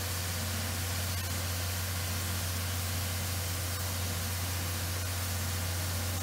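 Steam locomotive C61 20 drifting slowly along the platform: a steady hiss with a low, even hum underneath and no exhaust beats.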